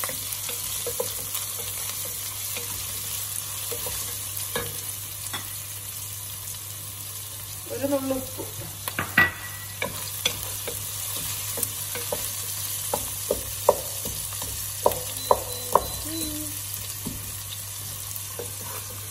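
Ginger, garlic, green chillies and onion sizzling in hot oil in a coated metal pot, steadily hissing, while a wooden spatula stirs them and clicks and scrapes against the pan, with a quick run of sharper knocks in the second half.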